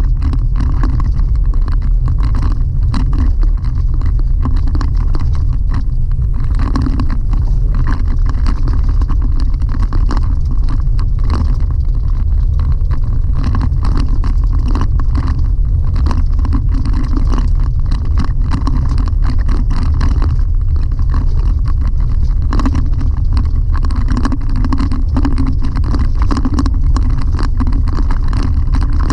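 Chevrolet Colorado ZR2 pickup driving on a gravel dirt road, heard from inside the cab: a loud, steady low rumble of tyres and drivetrain, with many small clicks and rattles from the rough gravel surface.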